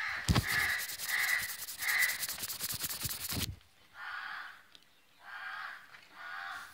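Phone microphone rubbing and handling noise as the phone is moved, cutting off about three and a half seconds in. Under and after it, a series of short harsh animal calls, about one every second.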